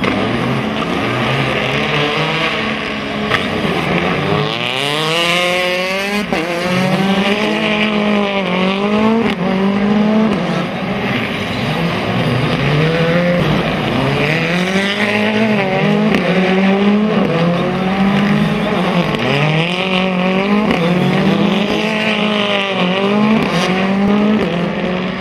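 Rally car engines at full throttle, revving up through the gears with sharp drops in pitch at each shift and repeated rises and falls as the cars accelerate and slow for the corners.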